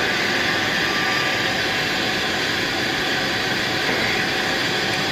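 Royal Master TG 12x4 centerless grinder running, its 12-inch grinding wheel and its regulating wheel turning at about 55 RPM, a steady even machine sound.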